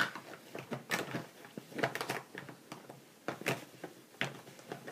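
Irregular light clicks and knocks of makeup products being picked up, handled and put down while rummaging for one.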